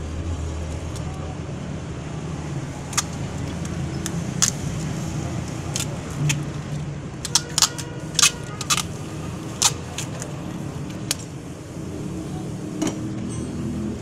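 Sharp plastic clicks and taps from an ignition coil being handled and turned in the hands, most of them bunched together about halfway through, over a steady low hum.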